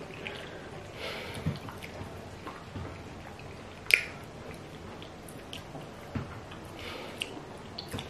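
Close-up eating sounds: wet chewing and lip smacks as hands take goat meat pepper soup from a bowl, with scattered small clicks, the loudest a sharp smack about four seconds in.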